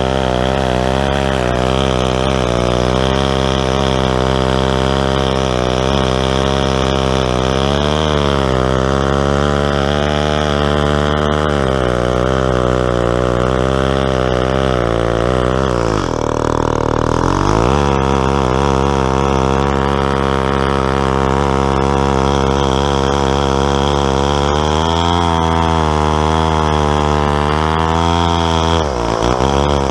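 Stihl 090 chainsaw's large two-stroke engine running under load in a chainsaw mill, ripping a log lengthwise. The engine note wavers throughout, drops sharply about halfway through and recovers within a couple of seconds, then dips briefly again near the end.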